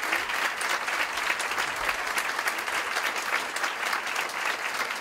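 Audience applauding steadily, with dense clapping from many hands.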